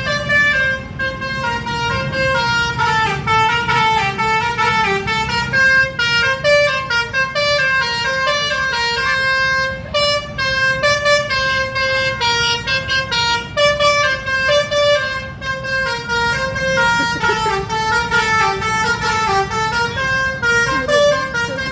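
Basuri telolet musical bus horn playing a quick melody of held notes that step up and down in pitch without a break, over a low rumble underneath.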